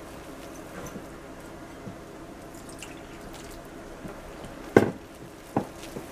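Wire whisk beating gram flour and water into a thin batter in a glass bowl: soft wet squishing and light taps, with two sharp clinks of the whisk against the bowl near the end.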